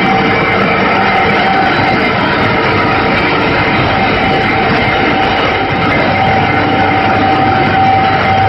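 Nordmeccanica solvent-free film laminating machines running: a steady, even mechanical drone with a few constant whining tones over it.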